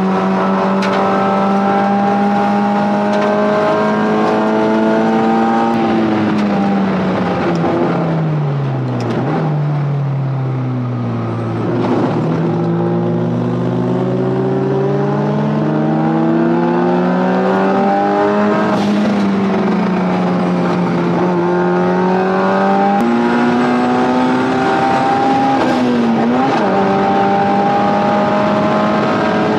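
Onboard sound of the turbocharged Honda K-series engine in an S2000 race car under race load. The engine note holds high, falls for several seconds, then climbs back up and stays high, with a couple of brief dips and jumps in pitch near the end.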